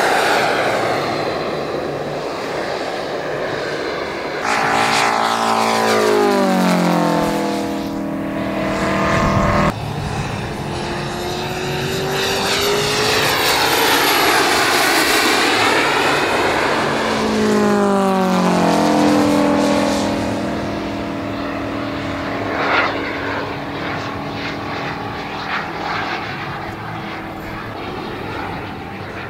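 Large radio-controlled scale model warplanes, a Messerschmitt Me 262 jet and a Focke-Wulf Fw 190, flying low passes. The engine note drops in pitch as a plane goes by, twice, with a thin high whine in between.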